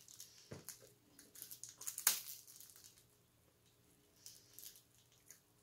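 Faint crinkling, clicks and rustling as a small boxed milk carton is handled, with one sharper crackle about two seconds in and a few small ticks near the end.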